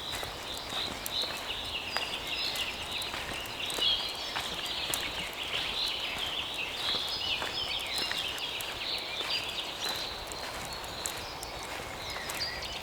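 Footsteps crunching on dry leaves on a forest path at a slow walking pace, over continuous chirping birdsong.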